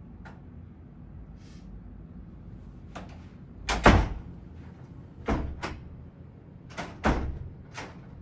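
A wooden room door with a lever handle being handled: latch clicks and a series of knocks and thuds, the loudest about four seconds in.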